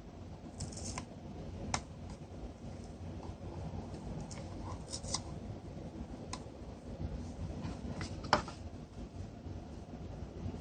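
Hands handling and fitting together the small plastic housing of a VoIP phone adapter: steady rubbing and scraping with a few scattered sharp clicks, the loudest about eight seconds in.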